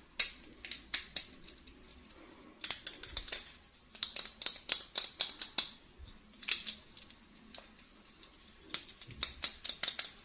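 Scissors snipping in quick runs of sharp cuts, several a second, with short pauses between the runs.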